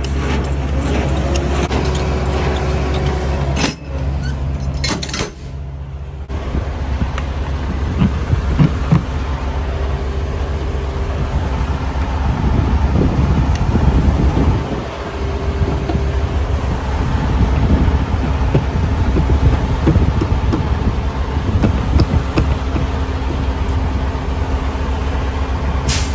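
Diesel semi truck idling steadily, with scattered knocks and clicks of hands working on the trailer gear.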